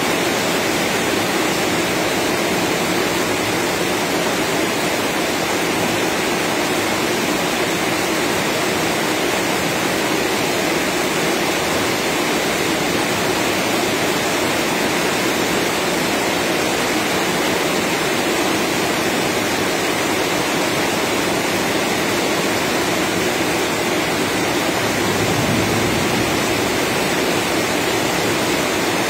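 Rain pouring down steadily, a loud, even hiss that never lets up.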